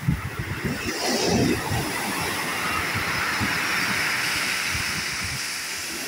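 Sea surf breaking on a pebble beach: a wave crashes about a second in, followed by a long hissing wash of foaming water over the stones that slowly eases off.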